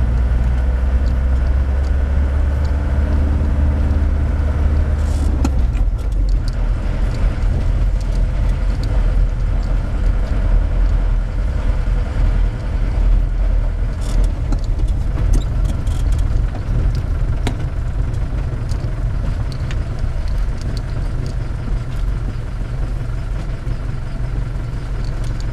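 Steady low rumble of a motor vehicle's engine and road noise, heard from inside as it drives along, with a few faint rattles.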